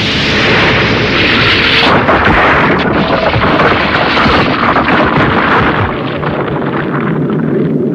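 Anime explosion sound effects: a long blast with rock crashing and crackling debris, the hiss fading over the last two seconds.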